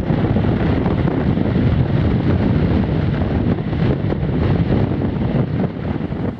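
Strong force-6 wind buffeting the camera microphone on an open beach: a steady, loud rumble with no letup.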